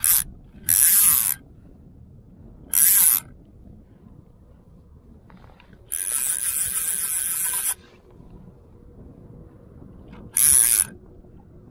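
Fly reel's click-and-pawl ratchet buzzing in five bursts, the longest about two seconds, as line runs through it during the fight with a large white-spotted char.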